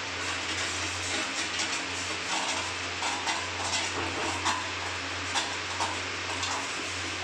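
Metal spoon clinking and scraping against a steel pan while stirring sugar syrup, about ten short clinks spread irregularly, over a steady hiss and low hum.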